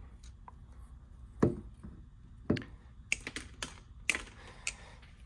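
Cutters snipping the wires of a new throttle position sensor pigtail to shorten it: sharp snips and clicks, the two loudest about a second and a half and two and a half seconds in, then several lighter clicks in quicker succession.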